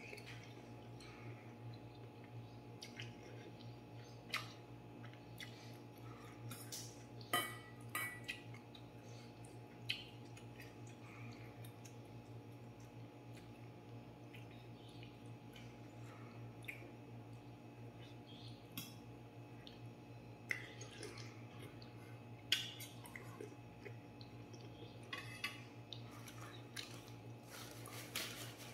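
Metal fork and spoon clinking now and then against a stainless steel bowl as noodles are eaten, about a dozen sharp clinks scattered through, over a steady low hum.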